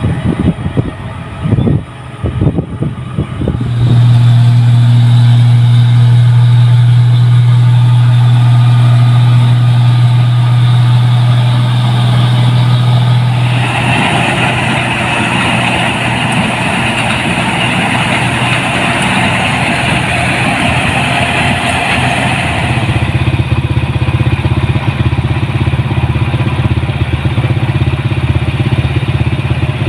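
Rice combine harvester engine running, uneven for the first few seconds and then settling into a loud, steady drone. From about a third of the way in to about three-quarters, a broad rushing, rattling noise of the working machinery sits over the drone.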